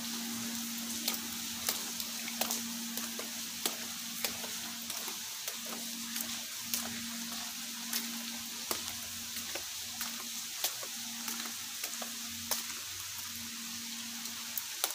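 Heavy rain falling steadily: an even hiss with frequent sharp ticks of drops striking close by.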